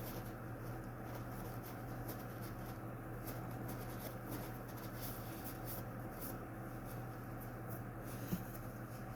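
Steady low hum with faint scattered light clicks, and one short tap about eight seconds in.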